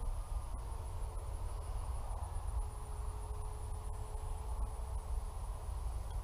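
Faint, distant drone of a small electric RC biplane's motor and propeller high overhead, its pitch drifting slightly, over a low rumble of wind on the microphone and a steady high insect trill.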